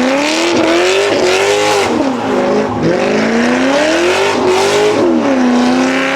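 A vehicle engine revved hard up and down about six times in quick succession, with a dense hiss over it.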